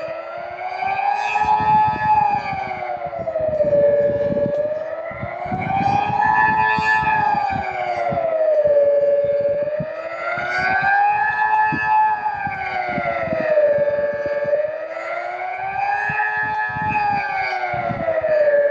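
Delta 6 civil defence siren sounding the Swiss general alarm for the siren test: a continuous wailing tone that rises and falls smoothly, about one swell every five seconds.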